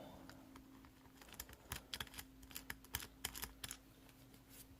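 Faint, irregular light metallic clicks and taps of a screwdriver working in the shackle hole of an ASSA Ruko 2 padlock to free its core.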